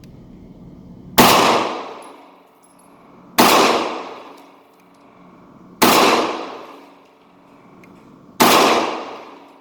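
Four pistol shots, slow aimed fire about two to two and a half seconds apart, each echoing and fading over about a second.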